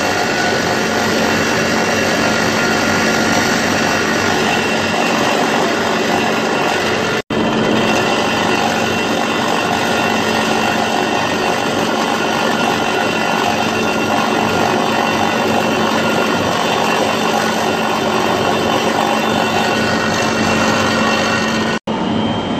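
Milling machine cutter machining a channel in a steel block: a steady, dense cutting noise over a constant spindle hum. The sound cuts out briefly twice, about 7 seconds in and near the end.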